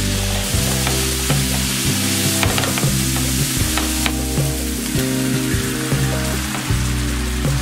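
Vegetables sizzling in a hot nonstick frying pan, stirred with a wooden spatula that scrapes and taps the pan a few times, over background music.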